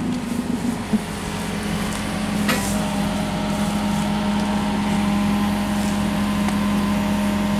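Backhoe loader's diesel engine running steadily, with a single sharp knock about two and a half seconds in.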